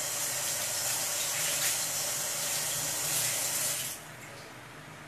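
Kitchen tap running into a sink with a steady hiss, shut off about four seconds in.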